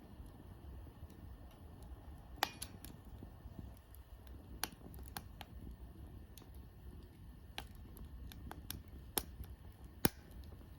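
Wood campfire crackling, with sharp pops at irregular intervals over a low steady rumble. The loudest pops come about two and a half seconds in and near the end.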